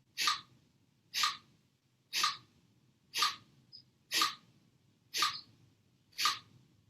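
Kapalabhati breathing: short, forceful exhalations through the nose, about one a second, seven in a row, each a sharp hiss with quiet passive inhalations between.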